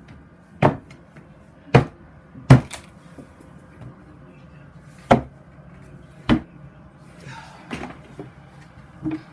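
A series of sharp knocks on wood, about five in the first six seconds at uneven spacing, the loudest about two and a half seconds in, with a few fainter taps near the end.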